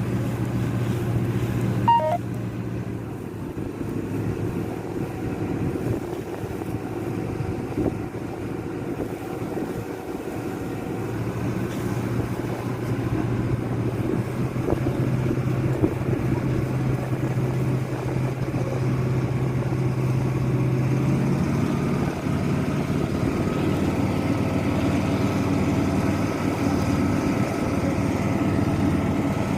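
An engine running with a steady low hum, its pitch stepping up slightly about 21 seconds in.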